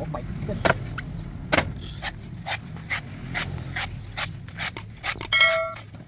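A big knife chopping into a coconut: a run of sharp knocks, about two to three a second, over a steady low traffic rumble. Near the end a short ringing tone sounds for about half a second.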